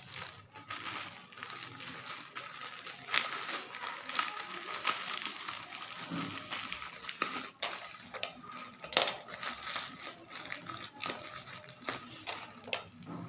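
Packaging being crinkled and rustled by hand as a parcel is unwrapped, with irregular sharp crackles, two of them loud.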